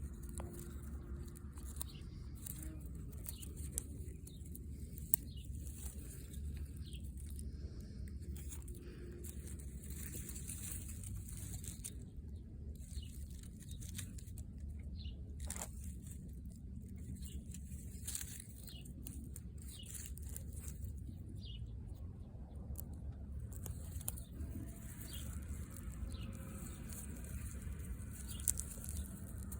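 Outdoor ambience: many short, high chirps from small birds over a steady low rumble, with a few sharp clicks.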